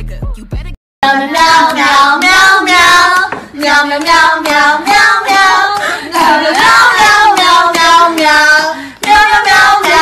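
A hip-hop beat with heavy bass cuts off under a second in. After a short gap, voices sing a birthday song with hand clapping.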